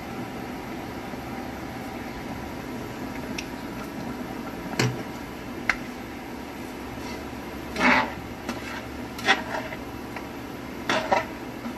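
A spatula scraping and knocking against a non-stick frying pan while stirring a cream sauce: a couple of light clicks about halfway through, then three louder scrapes near the end, over a steady low hum.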